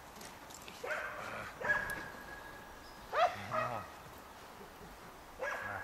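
Four-month-old Belgian Malinois puppy yipping and whining: a few short high yips about a second in, one drawn out into a long steady whine, a sharper rising-and-falling yelp a little past the middle, and another yip near the end.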